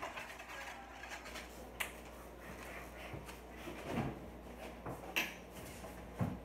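A few clicks and knocks of things being handled in a kitchen: sharp clicks about two and five seconds in, and duller knocks around four and six seconds in.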